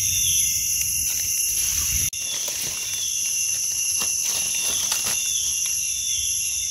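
Steady high-pitched insect chorus, several unchanging pitches ringing together, with light rustling of dry leaf litter and small scrapes as a mushroom is pulled up and its base trimmed with a knife. The sound breaks off for an instant about two seconds in.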